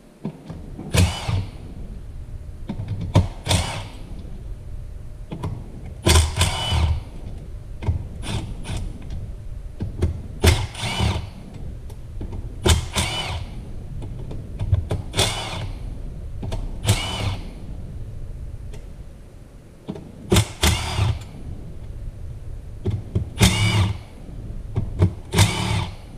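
A power ratchet or driver spinning out the bolts of a Ford E4OD transmission's valve body, about eleven short runs roughly two seconds apart, each a whine that rises in pitch as the bolt backs out.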